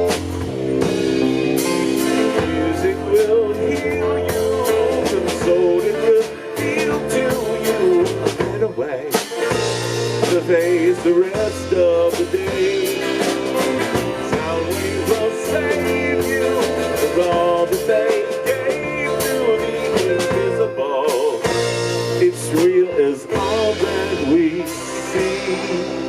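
Live rock band playing an instrumental passage: guitar and bass over a drum kit, with a lead line bending and wavering in pitch.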